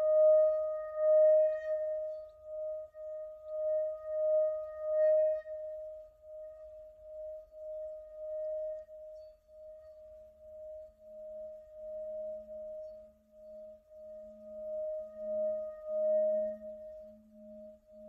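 Tibetan singing bowl ringing with a pulsing, wavering tone, kept sounding by a wooden mallet circled around its rim. About halfway through a deeper hum comes in and grows stronger.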